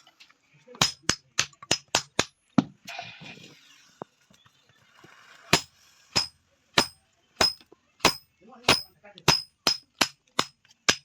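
Hand hammer striking metal on an anvil, each blow clanging with a short high ring. A quick run of about seven blows, a pause, then about ten slower, steady blows.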